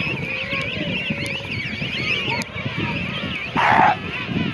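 A king penguin colony calling: a dense mass of overlapping high, wavering whistles, with wind rumbling on the microphone. About three and a half seconds in, a short, loud, harsh burst of noise stands out for under half a second.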